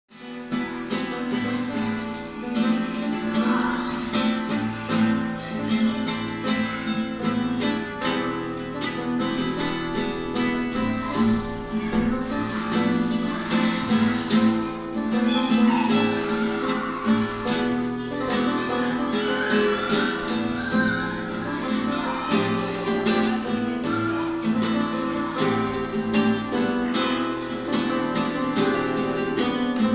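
Classical nylon-string guitar and upright piano played together as a duet, a steady run of notes on both instruments.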